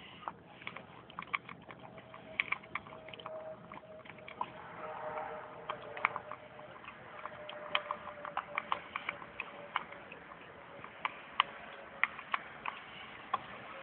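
Bouvier des Flandres puppy eating from a stainless steel bowl: a quick, irregular run of sharp clicks and smacks as she chews and her teeth and tongue knock against the metal.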